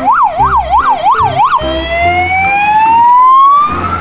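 Ambulance siren sounding a fast up-and-down yelp, about three sweeps a second, that switches under a third of the way in to one long, slowly rising wail.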